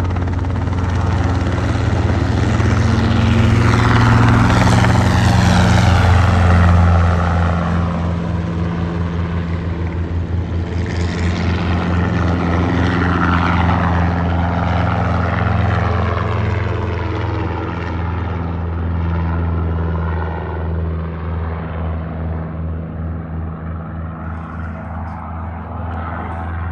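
Mustering helicopter's engine and rotor running as it flies close by, with a steady low pulsing drone. The sound swells about four to seven seconds in, sweeps as it passes, and then slowly fades.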